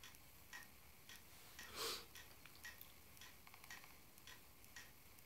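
Near silence: faint, regular ticking about twice a second, with one short breath a little before two seconds in.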